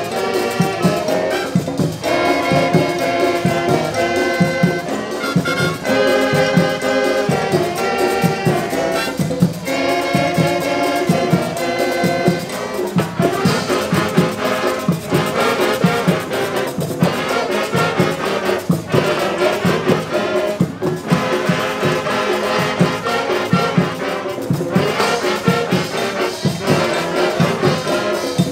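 Brass music: trumpets and trombones playing held chords over a steady drum beat.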